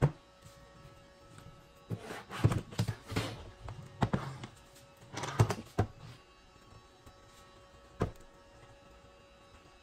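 Particleboard drawer box being turned and moved on a workbench: a run of knocks and scraping from about two to six seconds in, then a single thunk about eight seconds in.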